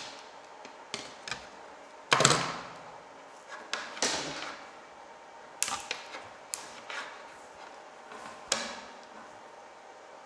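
Sharp snips and clicks of a hand tool cutting and stripping a fibre optic cable, about ten at irregular intervals, the loudest about two seconds in.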